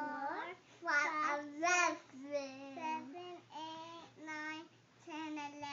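A young child singing in a high voice, a run of short held notes with slight wavering in pitch and brief breaks between them.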